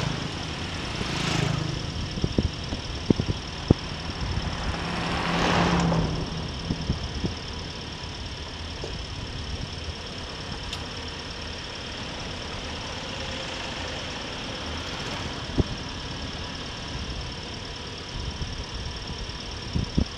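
Engine running and road noise from a vehicle travelling along a road, with two louder rushing swells about one and five and a half seconds in, and a few sharp knocks between two and four seconds and again near the end.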